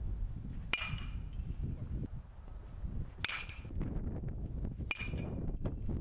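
Baseball bat striking pitched balls in batting practice: three sharp pings with a short ringing tone, about two seconds apart, over a low rumble of wind on the microphone.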